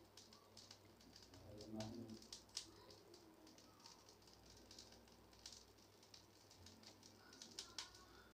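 Near silence with faint scattered crackles and ticks from ring-shaped vathal (sun-dried fryums) puffing in hot salt in an iron kadai as a slotted steel spoon stirs through it. A faint low pitched sound comes about two seconds in.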